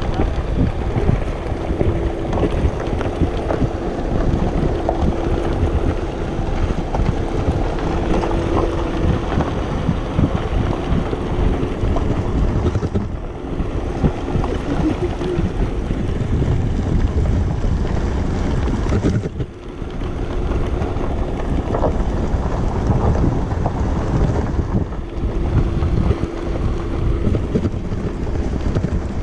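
Wind buffeting a handlebar-mounted camera's microphone over the rumble of an electric handbike-powered wheelchair rolling over bumpy grass, with a faint steady hum in the first third and again near the end.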